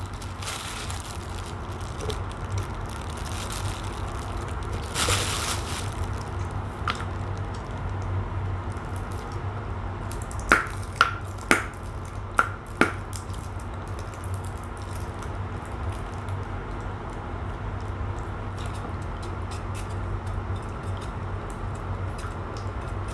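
Fermented fish innards (tai pla) being squeezed by hand and squished through a metal wire strainer over a pot of curry. About halfway through come five sharp clicks in quick succession, over a steady low hum.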